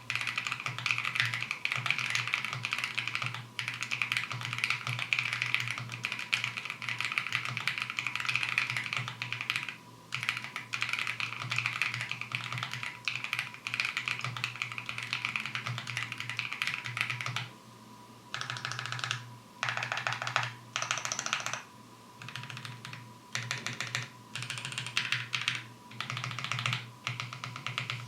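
Typing on a Coder66 gasket-mount mechanical keyboard with lubed linear switches and PBT keycaps. Fast, continuous keystrokes for about the first seventeen seconds, then shorter bursts of typing broken by brief pauses.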